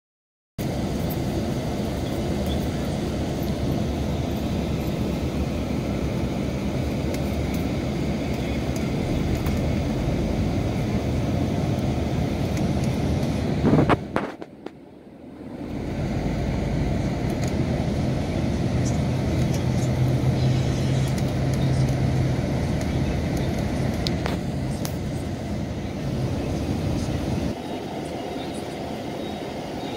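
Mercedes-Benz O-500RSD coach's diesel engine running steadily. About halfway through there is a sudden loud burst, then the sound drops away for a couple of seconds before the engine noise returns.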